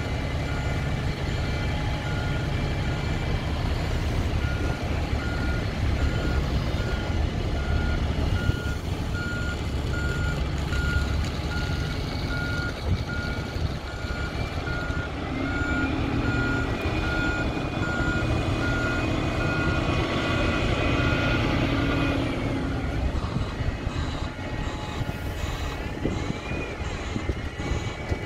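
A bus's reversing alarm beeping at an even pace over the low rumble of its engine running. The beeping stops about three-quarters of the way through.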